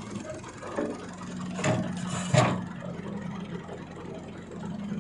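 Hitachi wheeled excavator's diesel engine running steadily while it works, with two sharp knocks about a second and a half and two and a half seconds in.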